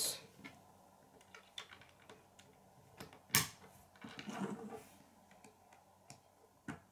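K'nex plastic rods and connectors handled and snapped together on a wooden tabletop: scattered light clicks and taps, the sharpest about three and a half seconds in.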